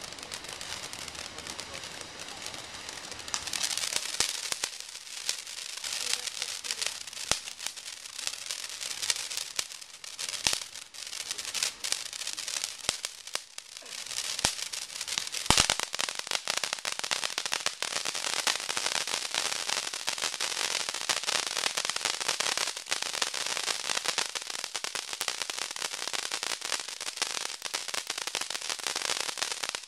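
Winda Krazy Krack firework going off with dense, continuous crackling: a rapid spatter of small pops that grows louder a few seconds in and keeps going, with an occasional louder single bang, the strongest about halfway through.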